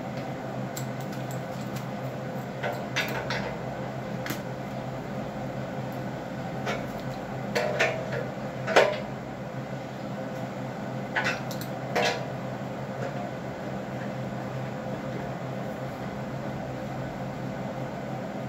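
Irregular metallic clinks and knocks, about a dozen, the loudest about nine seconds in, as a heating element is screwed by hand into its 1¼-inch BSP threaded boss. A steady hum runs underneath.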